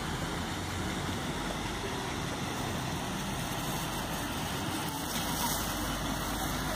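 Steady hum of distant road traffic, with a faint hiss joining about five seconds in.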